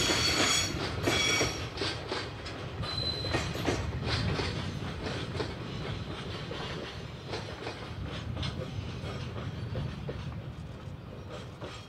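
Freight train's container wagons rolling away over jointed track: wheels clicking over the rail joints above a low rumble, with a high wheel squeal near the start and again briefly about three seconds in, the whole sound fading as the train recedes.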